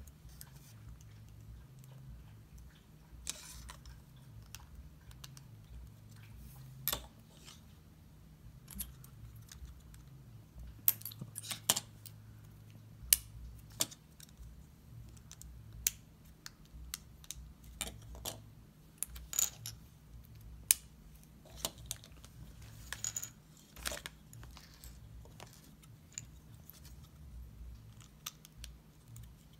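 Small plastic LEGO pieces clicking as they are snapped together and handled against a hard tabletop: scattered sharp clicks, a few louder ones in the middle of the stretch.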